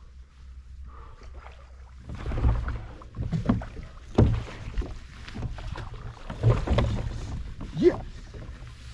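Water splashing and knocks against a fishing kayak as a hooked fish fights at the surface right beside it. The bursts are irregular and start about two seconds in.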